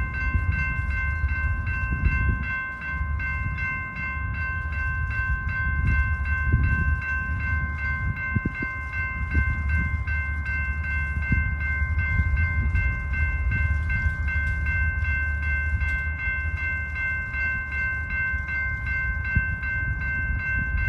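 Railroad crossing bell ringing steadily at about two strokes a second, over the low rumble of three diesel locomotives passing through the crossing.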